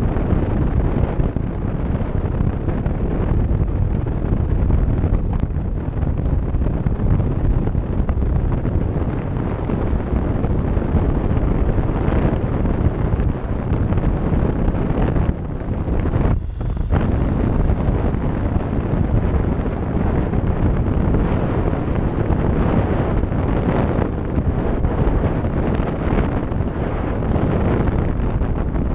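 Wind rushing over the microphone of a camera on a Honda Transalp motorcycle riding at road speed, with the engine and tyre noise blended underneath. The noise dips briefly about halfway through.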